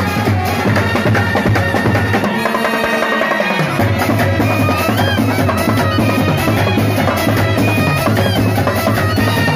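Brass band playing: side drums and a bass drum with a mounted cymbal beat a steady rhythm under a trumpet and reed melody. The low bass notes drop out about two seconds in and return a couple of seconds later.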